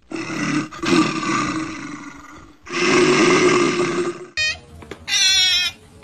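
A large animal's deep, rough roar, heard twice in long bouts. Then, near the end, an otter's high-pitched squeaky chirps.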